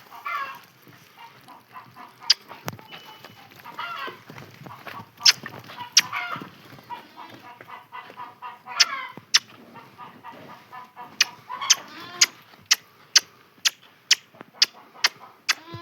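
Chickens clucking, mixed with sharp clicks or knocks that become an even series of about two a second in the last few seconds.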